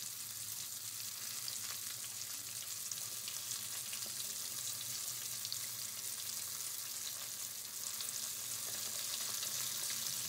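Besan-coated fish pieces deep-frying in hot oil in a steel wok on medium heat: a steady sizzle with fine crackling.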